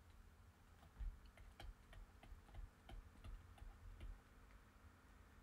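Faint, irregular clicks and taps of a stylus on a tablet screen during handwriting, a few per second.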